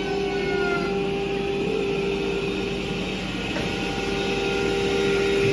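Automatic edge banding machine (LTT MF367J) running: a steady machine hum with a strong constant tone over motor noise, and a light click about three and a half seconds in.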